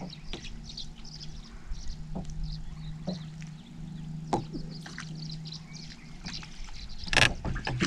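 Steady low hum of a bass boat's electric motor, with scattered light clicks and ticks, and a short loud rush of noise about seven seconds in.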